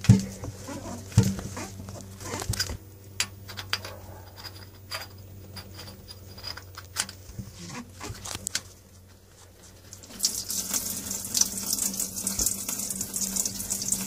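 Small clicks and taps as the drain plug in the side of a Volvo Penta AQ211A's cast engine block is worked loose by hand. About ten seconds in, a steady stream of water starts running out of the drain hole: the block's cooling water draining out for winter storage.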